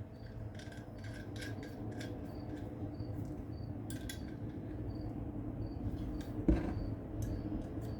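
Light metallic clicks and clinks of small hand tools being handled over a low wind rumble, with one louder thump about six and a half seconds in.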